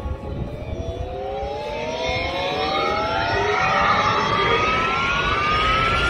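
A rising whine from the show's loudspeaker sound effects: two tones climb steadily together throughout, like a machine powering up.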